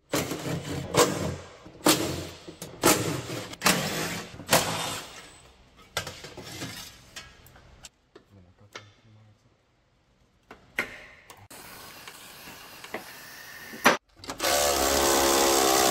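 Cordless Milwaukee power tool on a long socket extension, run in short bursts with sharp clicks to undo underbody bolts. Near the end it runs steadily for about a second and a half.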